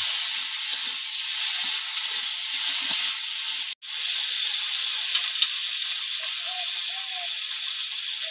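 Sliced potatoes sizzling in hot mustard oil in a pan as they are stirred, a steady frying hiss. The sound cuts out for an instant about halfway through.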